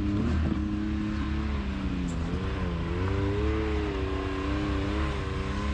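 Side-by-side UTV engine running under throttle as the machine climbs a rock ledge; its pitch dips about two seconds in, then rises and holds.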